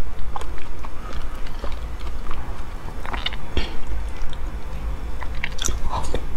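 Close-up mouth sounds of a person slurping and eating a thick, stringy, translucent jelly from a wooden spoon: irregular sucking, smacking and small clicks, with one sharper tick about three and a half seconds in.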